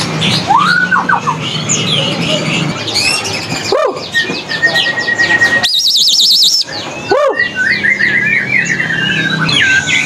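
Many caged songbirds singing at once: overlapping chirps and rising and falling whistles, with one clear held whistle around the middle followed by a fast warbling trill.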